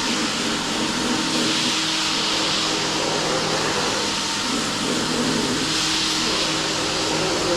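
A machine running steadily: a constant whirring hiss over a low, even hum, with no change in speed and no knocks.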